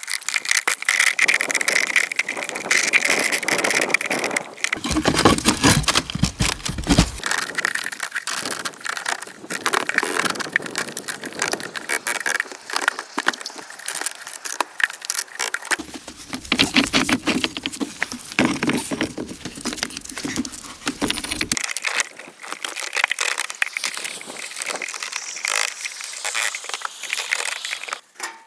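Dense, irregular crackling and clattering, with a low rumble joining in twice for a few seconds.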